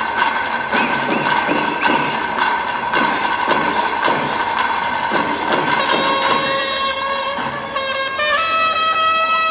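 Live traditional stage music: drums beating steadily about twice a second under a held tone, then a sustained melody moving between long held notes from about six seconds in.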